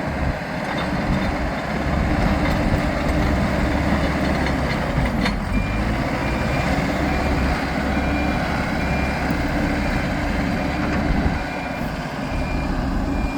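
Hidromek 102S Supra backhoe loader's diesel engine working hard. About five seconds in the revs dip and pick up again, and a reversing alarm starts beeping steadily as the machine backs up.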